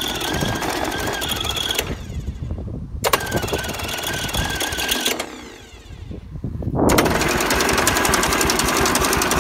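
Electric starter cranking a Nissan Diesel (UD) four-cylinder two-stroke diesel that has stood unused for 17 years. It turns over with a fast, even beat in three bursts: one stopping about two seconds in, a second from about three to five seconds, and a louder third from about seven seconds in. The engine does not start.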